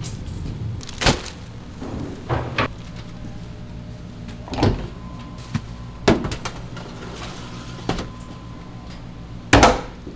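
Irregular knocks and clunks, about seven in all, the loudest near the end, over a steady low hum.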